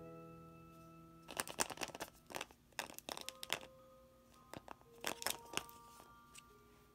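A surprise toy egg and its wrapping being handled and opened by hand: a run of sharp crinkles and clicks from about a second in to past five seconds. Soft chiming music plays under it.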